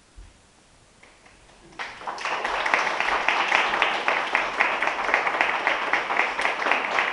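Audience applause, breaking out suddenly about two seconds in after near silence and continuing strongly.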